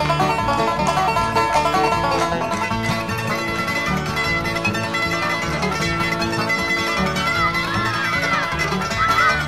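Bluegrass-style string band music with busy plucked-string picking; a wavering high melody line comes in near the end.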